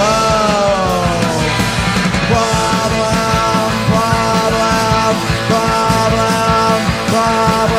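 Live punk rock band playing loud with no vocals: a distorted electric guitar note bends down at the start, then the guitar settles into repeated held chords over pounding drums and bass.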